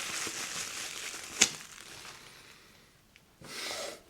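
Packaging crinkling and rustling as parts are unpacked, fading away after about two seconds, with one sharp click about a second and a half in.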